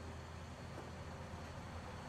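An engine idling steadily, with a faint light knock a little under a second in.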